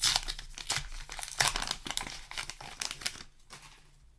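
Paper booster-pack wrapper crinkling and crackling as it is handled, with cards rustling, dying away after about three seconds.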